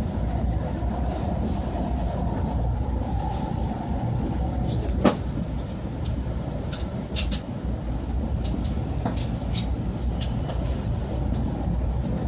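Cabin noise of an E2-series Shinkansen train running: a steady low rumble, with a faint whine that fades out a few seconds in. A single sharp click comes about five seconds in.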